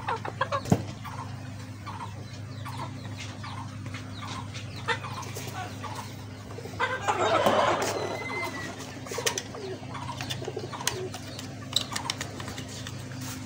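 Bantam chickens in a coop clucking, short calls scattered throughout, with one louder, rougher call about seven seconds in, over a steady low hum.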